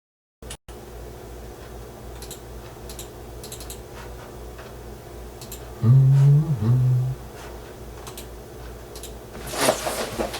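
Light clicks and handling noise over a steady low electrical hum. About six seconds in come two short, low hummed sounds, like a puzzled 'mm-mm', followed by busier handling noise near the end.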